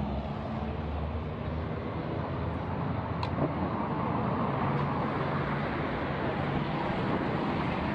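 Street traffic: a motor vehicle's engine runs steadily close by through the first half, over a broad, even rush of traffic noise that swells a little later on.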